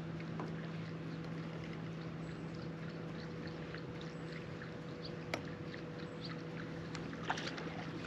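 A bow-mounted electric trolling motor hums steadily as it holds the bass boat along the shoreline, over light water and wind noise, with scattered small ticks and a sharp click about five seconds in. The hum cuts off suddenly right at the end.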